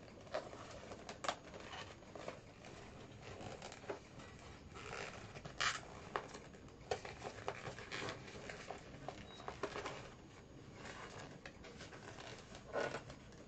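Fingers picking and scratching at a taped-shut cardboard box, with scattered faint scrapes, taps and rustles of the cardboard and a few sharper clicks. The tape keeps the lid from coming open.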